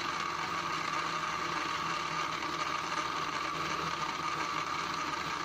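Electric countertop blender motor running steadily, churning peach juice with ice in a glass jar.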